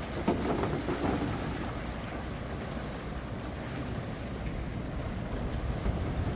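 Strong wind buffeting the microphone over the steady rush of high sea waves breaking against a breakwater, with a louder surge about half a second in.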